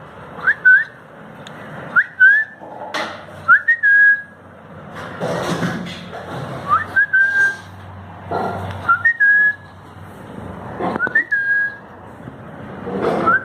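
A person whistling short calls to a puppy, about seven times: each is a quick rising note that levels off and holds briefly. Between the whistles are bursts of rubbing and handling noise.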